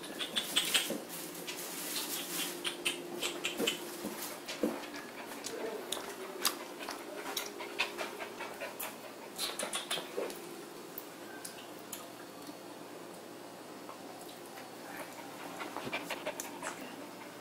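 Small dog panting as it moves about, with many sharp clicks and a couple of short whimpers.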